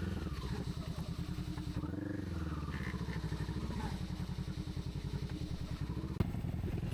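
Honda CBR sportsbike engine running at low revs with a steady pulsing note, picking its way over a technical dirt trail. The revs rise and fall briefly about two seconds in, and a single sharp knock sounds near the end.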